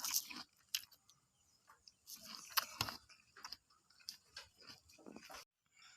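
Close-up biting and chewing of grilled corn on the cob, crisp crunches in irregular clusters. It cuts off suddenly near the end.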